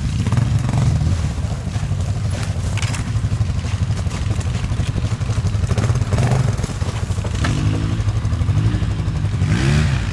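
ATV engines running in low gear on a rough trail, a steady rumble with a few revs rising and falling near the end.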